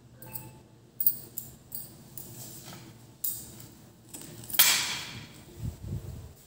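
Handling noise from a phone being picked up and moved: a few sharp clicks and knocks, then a louder rustle of cloth brushing the microphone about halfway through, and dull bumps near the end.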